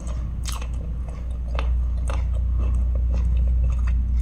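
Close-up chewing of a mouthful of curried chicken, with many small irregular wet mouth clicks. A steady low hum runs underneath.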